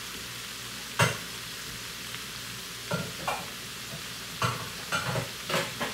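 Chorizo and potatoes sizzling steadily in a frying pan, with a series of sharp knocks and clatters: the loudest about a second in, then several more from about three seconds on.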